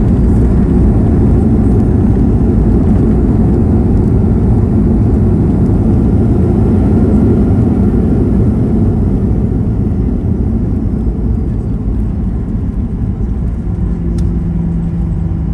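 Boeing 737-900ER jet airliner heard from inside the passenger cabin: a loud, steady rumble of engines and airflow that eases after about ten seconds, with a steady low engine hum coming through near the end.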